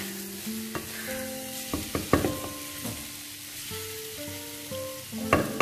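A wooden spatula stirring and scraping paneer and capsicum in a sizzling non-stick kadai, with several sharp knocks of the spatula on the pan, a cluster about two seconds in and the loudest near the end. Soft background music plays under it.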